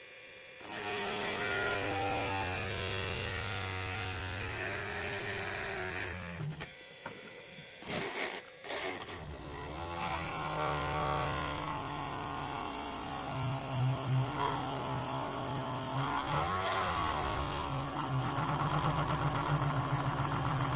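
A small motor running steadily, changing pitch as it works. It stops for a few seconds midway with a few sharp clicks, then runs on again.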